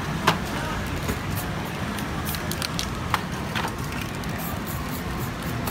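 Aerosol spray paint cans sprayed in a run of short hissing bursts onto poster board, with two sharp clicks, about a third of a second and three seconds in, over a steady low rumble of street traffic.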